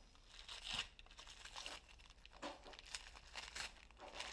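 Faint crinkling and tearing of a Bison 2 firecracker's paper packaging as a firecracker is unwrapped by hand, in a string of short rustles.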